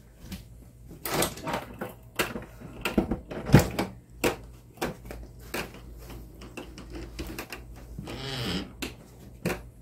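A string of irregular clicks and knocks in a small tiled kitchen: household clatter of someone moving about and handling things.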